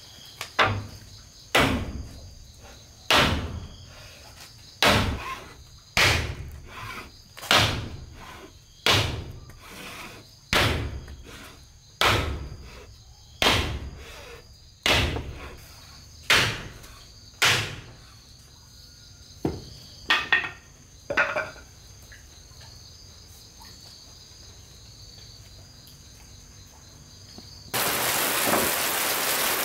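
Slow, heavy blows of a hammer on wood, about one every second and a half, then a few quicker knocks, over the steady chirping of crickets. Near the end a loud, steady hiss of rain starts suddenly.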